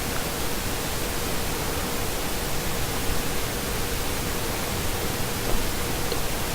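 Steady hiss of background noise with a faint steady hum-like tone, and no distinct event.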